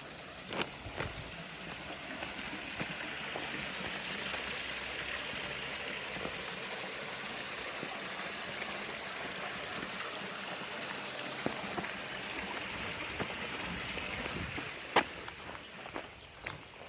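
Running water, a stream or channel flowing steadily, swelling up and fading away again. A few footsteps are heard at the start and near the end.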